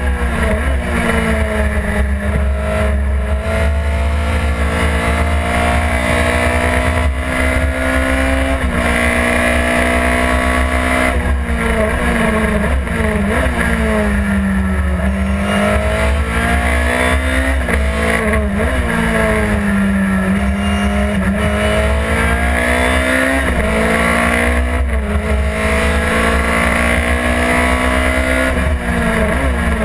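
Chevron B16 race car's engine heard from inside the cockpit: the revs climb under acceleration and drop sharply at each upshift, then fall as the car slows for corners, with short sharp rises in revs on the way down. A steady low rumble runs underneath.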